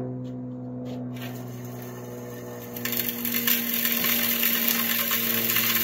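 ATV engine idling steadily while its rear-mounted electric broadcast spreader starts up about a second in. From about three seconds in, a loud rattling spray of sand mix and small stones flung out by the spinner and landing on the pavement.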